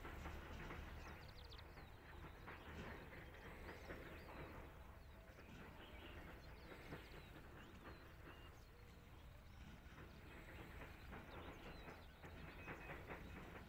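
Near silence: faint open-air ambience with a steady low rumble and a few distant bird chirps, about a second in and again near the end.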